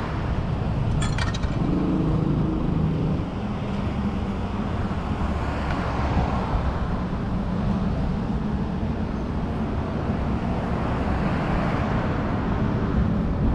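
Road traffic: cars passing on a busy street, a steady mix of engine hum and tyre noise, with a brief clicking about a second in.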